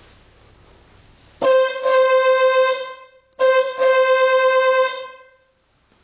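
Moskvich 2140 car horn sounding in two long, loud honks a short pause apart, each a steady single-pitched tone. The horn has just been brought back into working order.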